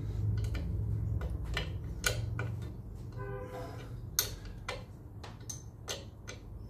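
Irregular sharp metallic clicks of a spanner turning a Land Rover Series drum-brake shoe adjuster on the back plate, as the adjuster is wound out to square the new brake shoe.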